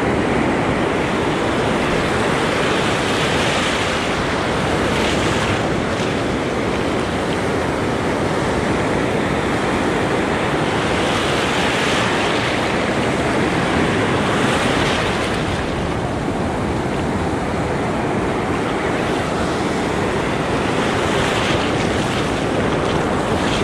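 Surf breaking and washing around the angler, with wind rushing over the microphone; the wash swells and eases every few seconds.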